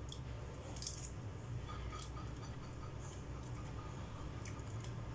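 Small wet crackles and clicks of shrimp being peeled and handled with bare fingers and eaten, a few at a time, over a steady low hum.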